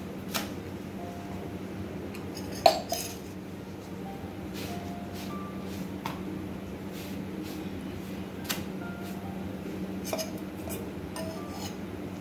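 Steel kitchen pots and utensils clinking and knocking around a gas stove, with one loud clank about three seconds in, over a steady low hum.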